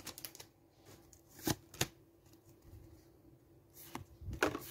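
A stack of Pokémon trading cards flipped through by hand, one card at a time: a few short card snaps and slides, with soft rustling between them.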